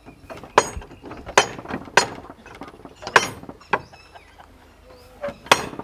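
Knocking on a large wooden double gate with iron fittings: about six sharp knocks, irregularly spaced, with a gap of over a second before the last one.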